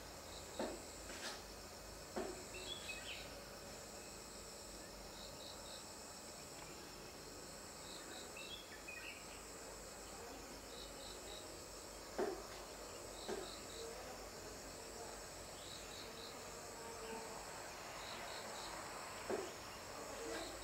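Insects chorusing at night: a steady high trill, with a cricket chirping in groups of three every two to three seconds. A few short soft knocks come through it, the loudest about halfway in.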